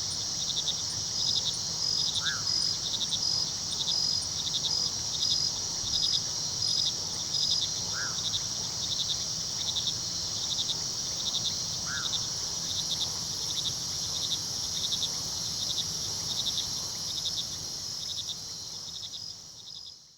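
Night crickets chirping: a steady high trill with rhythmic pulsed chirps repeating over it. The sound fades out at the very end.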